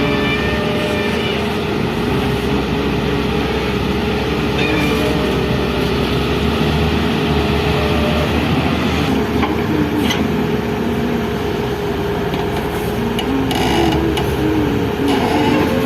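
Excavator's diesel engine running steadily while it works, with a tone that wavers up and down and a few brief knocks in the second half.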